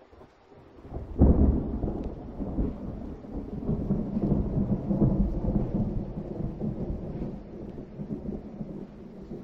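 A peal of thunder: a sudden crack about a second in, then a deep rumble that rolls on for several seconds, swells again midway and slowly dies away.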